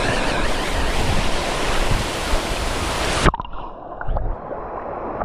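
Steady rush of a waterfall's falling water. A little over three seconds in, it cuts off abruptly with a click, leaving a duller, quieter sound.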